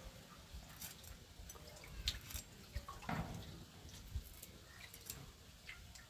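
Dried loitta (Bombay duck) fish being cut on a boti blade: faint, scattered crisp crackles and clicks as the brittle fish is pressed through the edge, with a few soft thumps.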